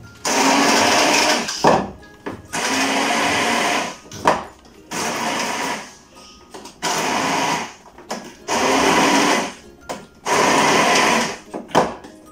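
Electric hand blender running in repeated bursts of about a second each, about seven times with short pauses between, as it purées soft baked apples into a compote.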